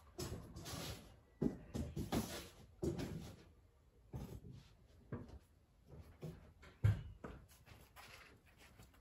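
Charcoal chimney starter lighting: irregular crackles and soft knocks, with one louder knock about seven seconds in.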